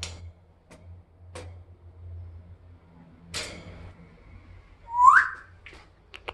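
African grey parrot giving one short rising whistle about five seconds in, amid a few scattered clicks and a brief rustle.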